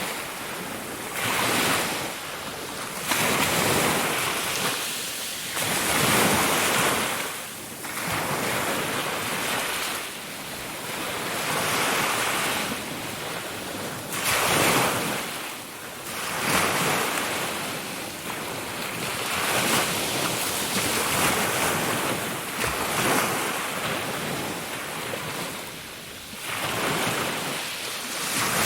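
Ocean waves breaking and washing on a shore, a rushing surf that swells and ebbs every two to three seconds.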